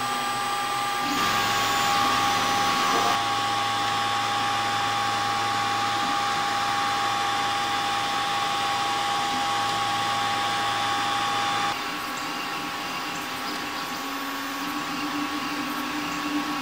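MakerGear M2 3D printer running: a steady whir of its cooling fans and motors with a few steady tones. The sound drops a little about twelve seconds in, and a lower steady tone comes in after about fourteen seconds.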